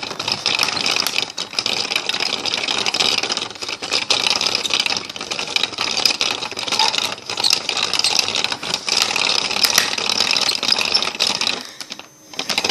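Plastic gears of a toy slime-making station's hand-turned spinner dial clattering continuously as it churns water and slime powder. The noise stops shortly before the end.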